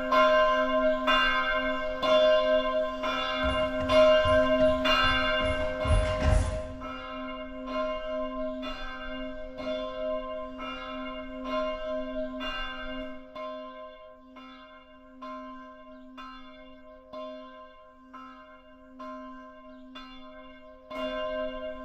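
A bell struck about once a second, ringing on between strikes, played through a simulated sound-propagation rendering of a virtual walled scene. It is loudest for the first six seconds, then turns quieter and thinner, and the low rumble under it drops out after about thirteen seconds.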